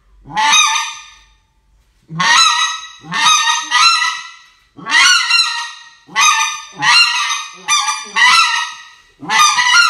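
Riceland Custom Calls (RCC) goose call, which the host later says is polyurethane, blown in a run of about ten sharp honks. Each honk breaks from a short low note up to a high ringing one, and the high notes carry a noticeable room echo.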